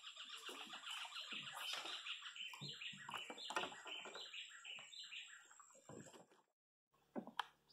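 Birds calling: a fast chattering run of repeated notes, then slower separate notes that fade out about six seconds in. A couple of sharp clicks follow near the end.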